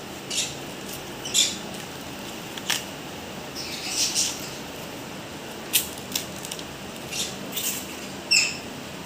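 Dry corn husks and silk tearing and rustling as they are stripped off a fresh cob by hand, in short crackly bursts every second or so. A few short high squeaks from pet conures, the clearest near the end.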